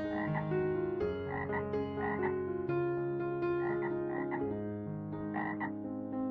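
Frogs croaking: short calls in pairs and threes over a continuous bed of steady pitched tones.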